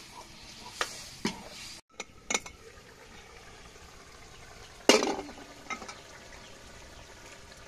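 Gravy sizzling in a hot steel kadhai as water is ladled in, then a steel ladle stirring and clinking against the pan. There are several sharp clinks, the loudest about five seconds in.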